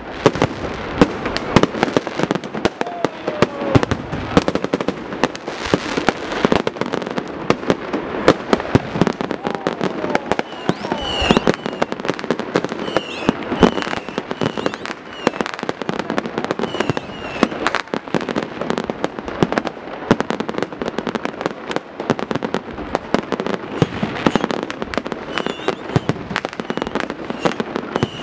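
Fireworks display: a dense, unbroken barrage of firework bangs and crackles, with short high whistling tones here and there.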